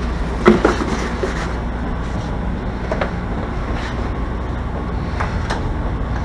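Chicago 'L' rapid-transit train car running, a steady low rumble heard from inside the car. A sharp knock about half a second in, and a few lighter clicks later.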